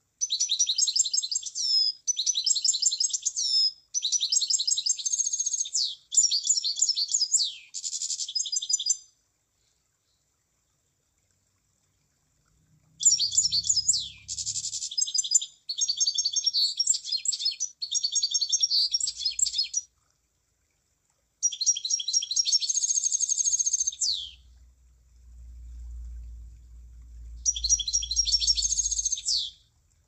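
Emprit (munia) singing: fast, high chattering phrases of about two seconds each, given in runs of several with silent pauses of a few seconds between the runs. A low rumble runs under the last phrase near the end.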